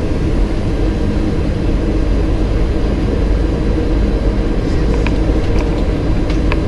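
Steady noise of airflow and engines inside a Boeing 737 cockpit on final approach, with a heavy low rumble. A few faint clicks come in the last couple of seconds.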